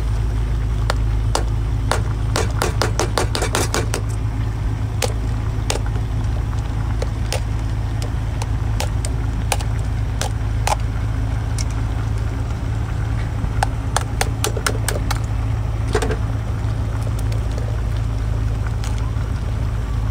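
A steady low engine drone runs throughout. Over it come sharp cracks and snips as a cooked crab's shell is cut with kitchen scissors and broken apart by hand: a quick run of cracks a few seconds in, and another cluster later on.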